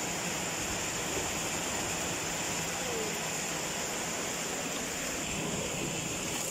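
Steady hissing outdoor background noise with a constant high-pitched tone running through it.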